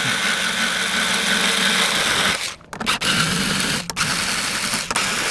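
Motorized guitar string winder whirring as it unwinds the old strings off the tuning pegs, running in stretches with brief stops between them.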